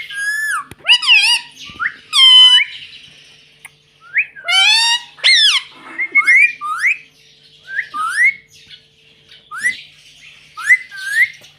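Indian ringneck parrot giving a rapid series of sharp squawks and shrill chirps with short pauses between them, many of the calls sweeping quickly up or down in pitch.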